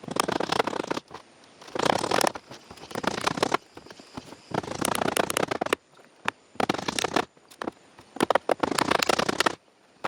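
Repeated bursts of crackling, scratchy scraping or rustling, each about a second long, with short pauses between them.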